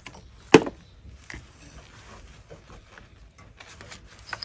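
A single sharp click about half a second in, followed by faint rubbing and light handling noises from gloved hands working among hoses and connectors in a car's engine bay.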